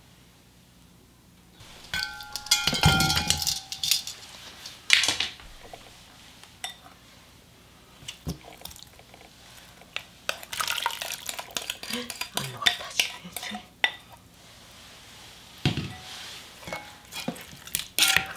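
A spoon clinking and scraping against a glass mixing bowl, starting about two seconds in, some strikes ringing briefly, as a soy-sauce marinade is stirred and scraped out onto raw chicken pieces in a pot; near the end, spoon-stirring in the pot.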